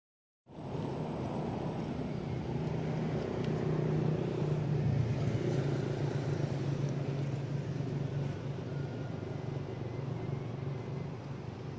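Steady low hum, like an engine running nearby, over outdoor background noise; it starts about half a second in.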